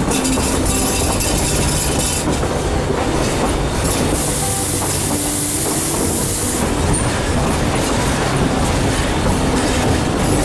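Durango & Silverton narrow-gauge train rolling along the track, with a steady rumble, wheels clicking over the rail joints and some wheel squeal. A burst of high hiss stands out for about two seconds midway.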